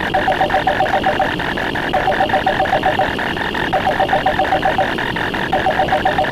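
Stacked, looping sound effects: a fast, steady run of clicks, about ten a second, over an electronic telephone ring. The ring sounds in trilling bursts of about a second, with short gaps between them.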